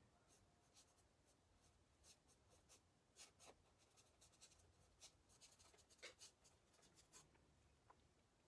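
Faint scratchy strokes and taps of a paintbrush laying acrylic paint on the painting, coming in quick clusters through the middle.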